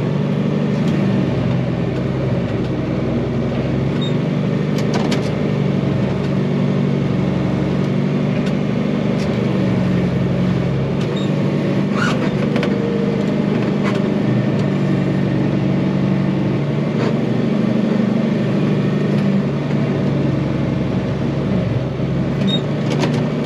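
Diesel tractor engine running steadily, with a few sharp clanks and rattles about five, twelve and twenty-three seconds in.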